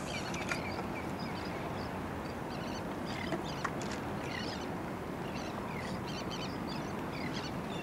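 Steady outdoor wind-and-water noise with many short, scattered bird chirps, and two faint clicks about halfway through.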